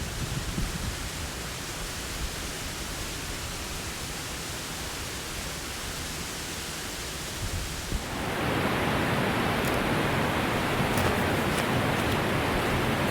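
Steady outdoor rushing noise, which becomes louder and fuller about eight seconds in, with a few faint ticks after that.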